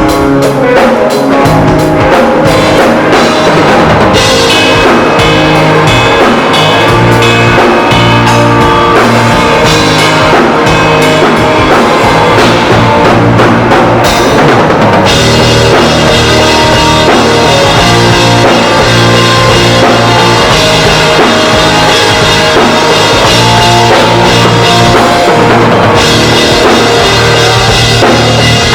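Live band playing loudly at a sound check, the drum kit to the fore with a steady bass drum and rimshots over sustained pitched instruments.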